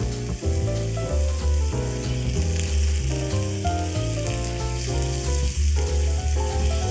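Pieces of horumon (offal) sizzling as they sear in a small cast-iron skillet, a steady frying hiss. Background music with a melody and steady bass plays along.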